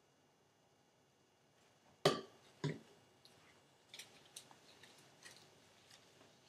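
Two sharp knocks about half a second apart, bottles being set down on a hard surface, followed by soft rustling and small scattered clicks as hands handle hair and a head covering.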